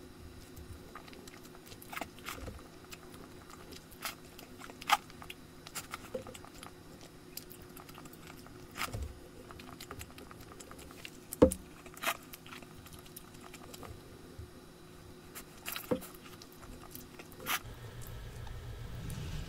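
Close-miked eating of cheese-covered tteokbokki: soft chewing with scattered sharp clicks and taps, the loudest about halfway through. A low hum comes in near the end.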